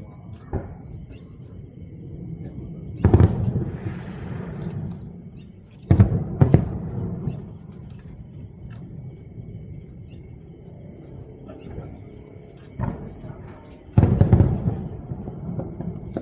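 Aerial fireworks shells bursting overhead: booms about three seconds in, two close together around six seconds, and two more near the end, the first followed by a short crackling trail.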